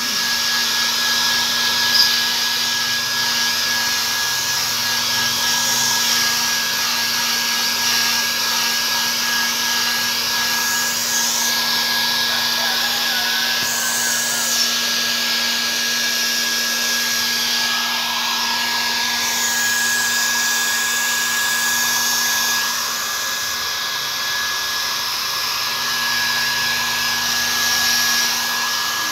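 Electric hair dryer blowing steadily, a continuous rushing whir with a constant motor hum, as a bathed Persian cat's fur is dried. It dips slightly in level for a few seconds past the middle.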